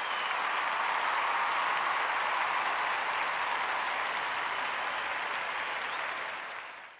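Applause: a steady, even clatter of many hands clapping that holds through and cuts off abruptly at the end.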